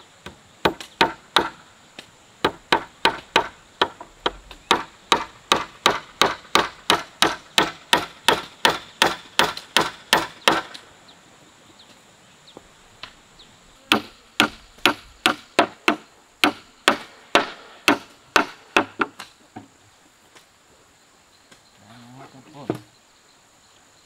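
A hammer striking a wooden plank, nailing it onto a post frame: a fast, even run of about three blows a second for roughly ten seconds, a pause of a few seconds, then a second, shorter run of blows.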